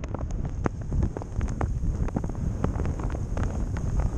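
Wind buffeting a moving camera's microphone during a descent down a snowy run in heavy snowfall: a loud, steady rumble with frequent short clicks and scrapes mixed in.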